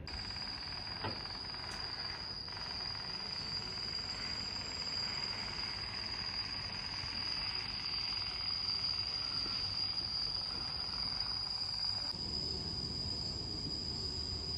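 Insects droning outdoors: one steady, unbroken high-pitched note over a faint background hiss.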